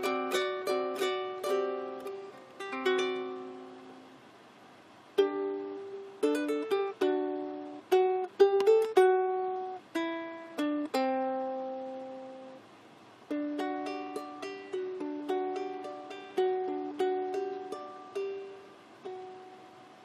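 Solo ukulele playing a slow melody: single plucked notes and chords that ring and fade, with two short lulls where the sound dies away before the playing resumes.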